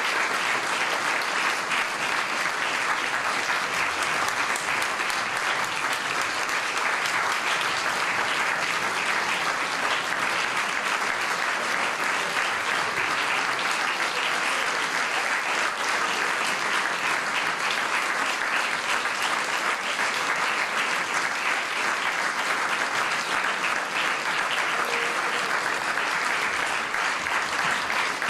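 Concert audience applauding steadily, a dense even clapping.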